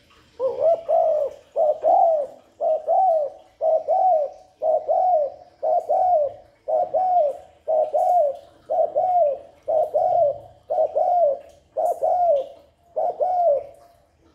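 Spotted dove cooing: about a dozen short, rising-and-falling coos in a steady series, roughly one a second.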